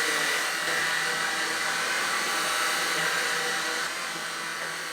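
Shark IZ251UK Anti Hair Wrap cordless stick vacuum cleaner running: a steady motor rush with a high whine, getting a little quieter near the end.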